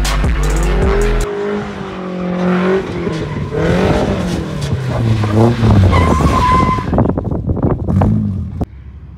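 Nissan 240SX S13's engine revving up and down as the car drifts on wet pavement, with a brief high tyre squeal partway through. Music plays for about the first second, and near the end the sound drops suddenly to a low outdoor hiss.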